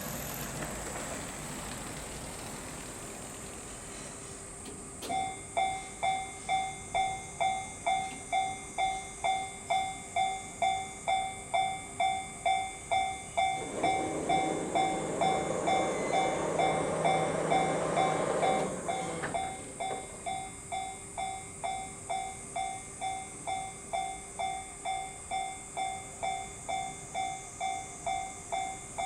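Japanese level-crossing warning bell starts about five seconds in and rings on at about two dings a second, signalling an approaching train. Midway a train passes over the crossing for about five seconds, and the bell keeps ringing after it has gone.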